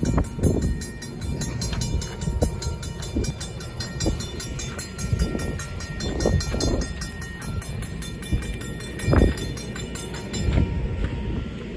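Railroad grade-crossing warning bell ringing rapidly over the low rumble of a train. A few heavy thumps come through, the loudest about nine seconds in, and the ringing grows fainter near the end.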